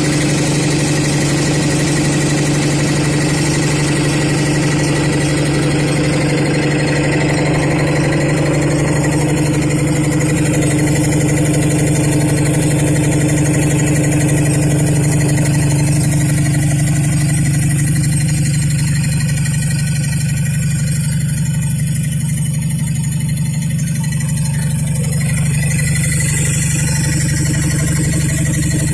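High-pressure piston air compressor (rated up to 400 bar) running steadily with a loud, even low hum. Its higher hiss thins a little past the middle.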